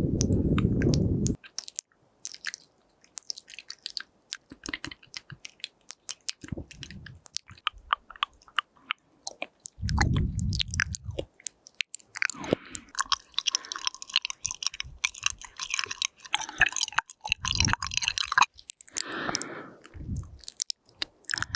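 Close-miked wet mouth sounds recorded on a binaural microphone: a dense run of small tongue and lip clicks and pops, with a stretch of soft hissing from about twelve to eighteen seconds in. A few short low thuds break in, at the start, around ten seconds and near the end.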